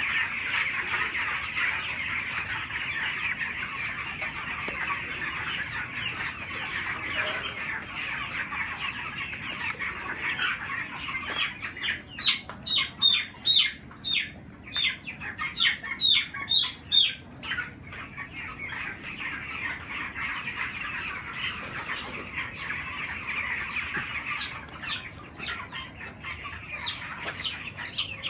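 A flock of young broiler chickens peeping and chirping without a break. From about twelve to seventeen seconds in, one bird close by gives a run of loud, falling peeps, two or three a second.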